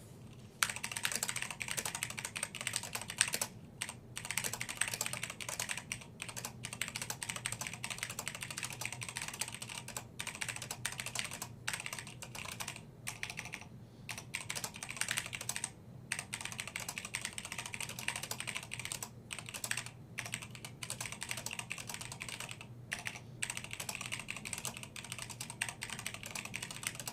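Typing on a Deck 82 mechanical keyboard with Cherry MX Black switches, which are linear, and a metal backplate: a steady stream of keystroke clacks with a few short pauses. The typing starts about half a second in.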